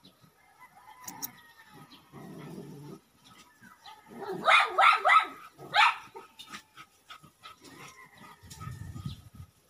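A dog barks in a quick run of four or five barks around the middle, the loudest sound here. Softer low rustling comes before and after.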